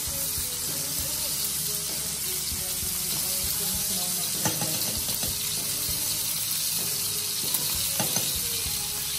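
Ribeye steaks sizzling in hot olive oil in a frying pan with crushed garlic cloves: a steady hiss. A few light clicks of a spoon against the pan come in the second half as the hot oil is spooned over the steaks.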